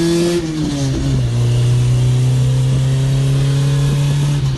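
Acura Integra's four-cylinder engine pulling hard under acceleration, its note dropping at an upshift about a second in, then holding steady until another upshift drops it again near the end.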